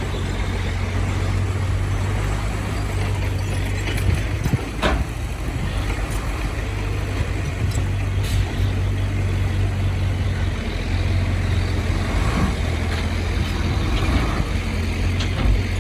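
Heavy construction-machine diesel engine running steadily at a low hum, with a few short knocks, the clearest about five seconds in.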